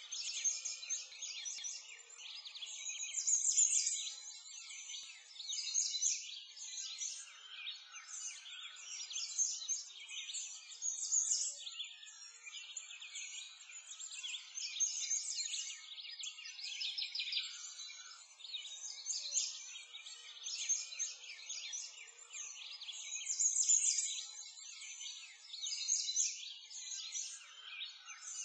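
A chorus of songbirds chirping and singing, many short high-pitched calls overlapping without pause, with no low sounds beneath them.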